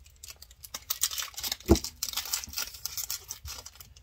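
Foil Pokémon booster pack wrapper crinkling and tearing as it is pulled open by hand, with one thump about a second and a half in.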